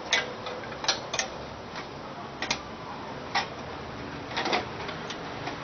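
Irregular sharp clicks and taps of small parts being handled while an electric fan is taken apart, about eight over several seconds, with a double click near 4.5 s, over a steady hiss.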